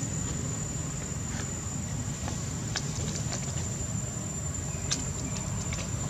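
Outdoor ambience: a steady high-pitched insect drone over a low, even rumble, with a few light clicks scattered through.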